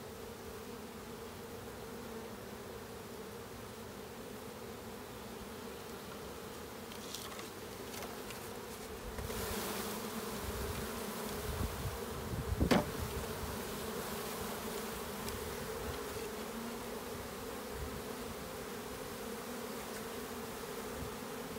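Honeybee swarm buzzing, a steady dense hum. There is a brief burst of noise about nine seconds in and a single sharp knock about thirteen seconds in.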